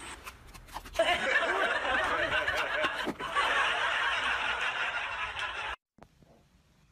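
Laughter, starting about a second in and going on for nearly five seconds, then cutting off suddenly.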